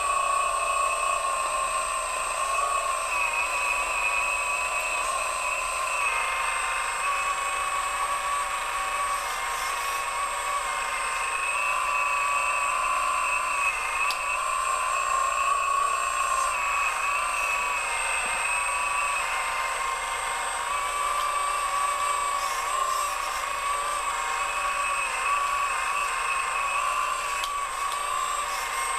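Radio-controlled Komatsu model excavator running: a steady high electric whine that dips and rises slightly in pitch as the arm moves and digs.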